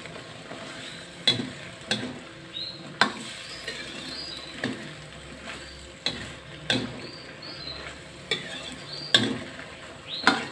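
Metal ladle stirring and tossing food in a hot wok, clinking and scraping against the pan at irregular intervals, about once or twice a second, over a steady sizzle.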